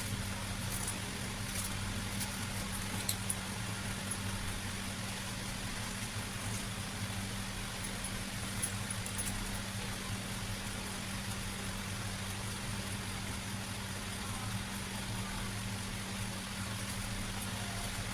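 A steady low hum over a soft hiss, with a few faint clicks in the first few seconds.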